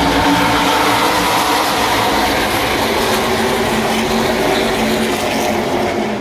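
A pack of NASCAR trucks' V8 engines at full throttle, a loud, steady roar of many engines together as the field races on the start of the final stage.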